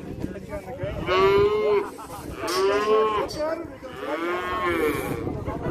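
Calves bawling: three loud calls about a second apart, each under a second long, rising then falling in pitch.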